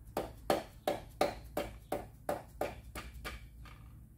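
About a dozen sharp taps in quick, even succession, roughly three a second, fading toward the end: a tool tapping on engine parts during an engine teardown.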